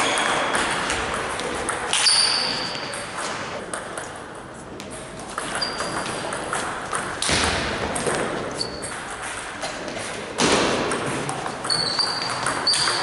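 Table tennis ball clicking off paddles and the table in rallies, sharp quick knocks, with short high squeaks of shoes on the wooden floor.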